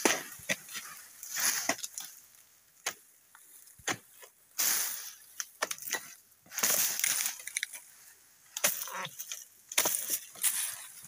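A long-handled pruning chisel striking the frond bases of an oil palm in irregular sharp chops, mixed with bursts of rustling as cut fronds come down through the leaves.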